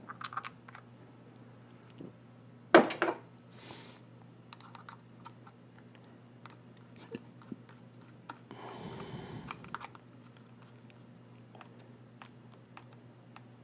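Small scattered clicks and handling noises of rubber revolver grips being fitted and a screwdriver turning the grip screw on a stainless revolver, with one sharp knock about three seconds in and a brief scraping rustle around nine seconds in.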